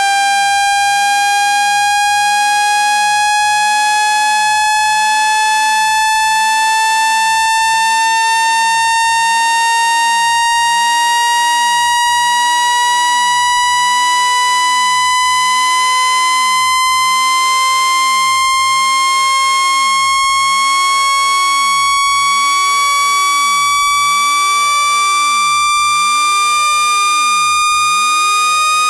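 Synthesized speaker-cleaning tone: a loud, continuous electronic tone with overtones, gliding slowly upward in pitch. It has a brief break about every second and a half.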